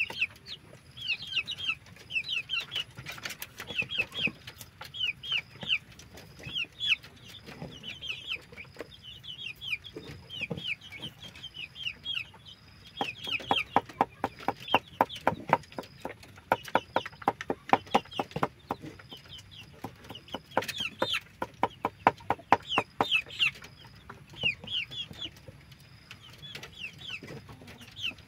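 A knife chopping food on a wooden board in quick runs of knocks, loudest and most regular through the middle, while chickens call throughout with short, high, repeated notes.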